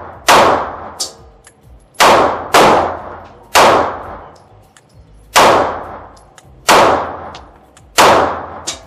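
Canik METE MC9 LS 9mm pistol firing seven slow, deliberately paced shots, each sharp report trailing off in a ringing echo. A couple of fainter shots fall between them.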